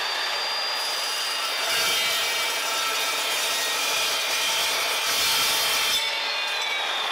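Evolution metal-cutting chop saw running at speed with a high steady whine. From about two seconds in, its blade cuts through steel for about four seconds with a rough grinding rasp. Near the end, after the cut, the motor winds down with a falling whine.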